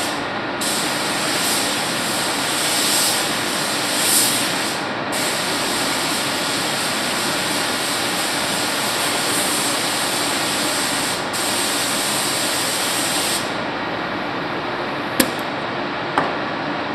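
Gravity-feed paint spray gun hissing as it sprays, the hiss cutting out briefly a few times between passes and stopping for good about three-quarters of the way through, over a steady rush of air. Two sharp clicks come near the end.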